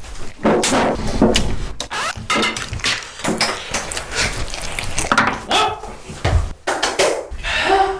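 Quick irregular knocks and clicks, mixed with a few brief voice sounds, mostly in the second half.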